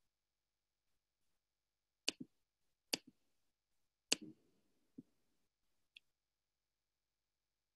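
About seven short, faint clicks and knocks with silence between them; the loudest, about four seconds in, trails off in a brief low rumble.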